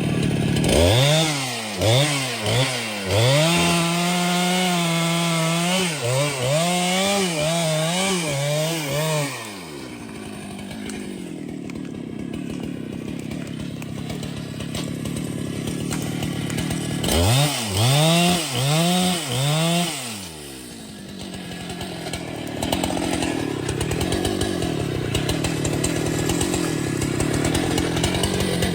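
Chainsaw engine revving up and down in quick repeated blips, with longer stretches of steadier running in between and toward the end.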